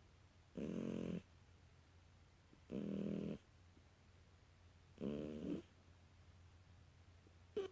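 British Shorthair kitten snoring in its sleep: three snores about two seconds apart, each lasting about half a second, then the start of a fourth near the end.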